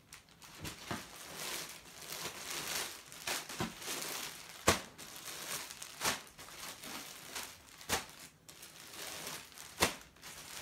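Clear plastic garment bags crinkling as bagged shirts and shorts are handled and stacked, with several sharp clicks among the rustling, the loudest about halfway through.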